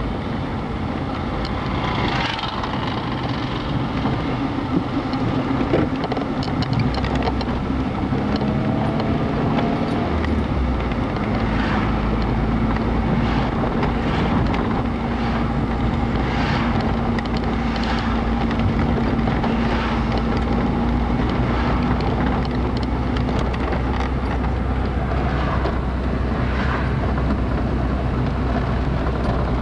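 Car on the move: a steady engine hum with road and tyre noise, and occasional light knocks.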